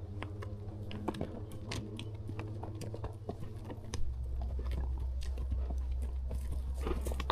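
A horse chewing, with irregular small crunching clicks, over a steady low rumble that gets louder about four seconds in.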